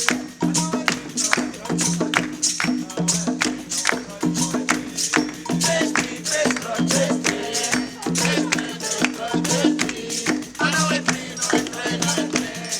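Live coco de roda music: a shaker rattling and hand percussion striking in a steady, driving rhythm, with a low pitched drum pattern repeating about once a second. Voices sing over it near the end.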